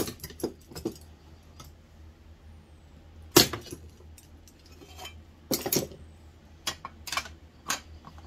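Scattered metallic clinks and knocks from hand tools and a thick aluminum sheet handled on a wooden workbench. The loudest comes about three and a half seconds in, with a quick cluster of them a couple of seconds later.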